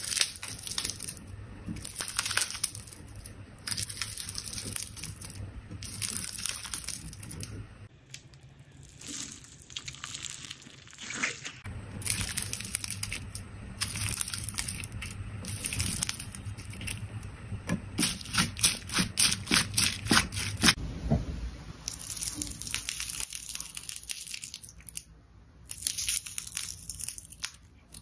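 Jelly slime being squeezed and pressed by hand, with continuous crackling, crunching and squishing and a quick run of sharp pops about two-thirds of the way through.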